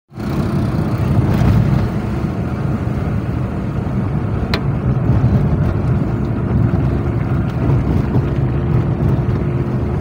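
Inside a moving car's cabin: the steady low rumble of engine and road noise while driving, with a faint steady hum over it and one brief click about four and a half seconds in.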